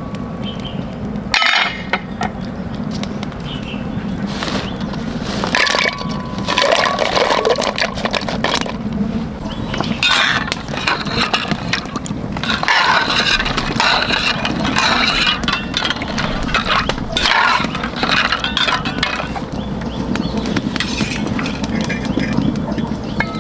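Pistachios in their shells rattling and clinking against each other and the container, with scattered sharp cracks, as the nuts are handled and stirred in clusters.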